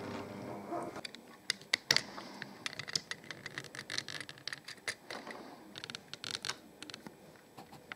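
A model train's electric motor hum dies away about a second in. After that come irregular small plastic clicks and rattles as the model crane lifts the derailed model coach by its hook.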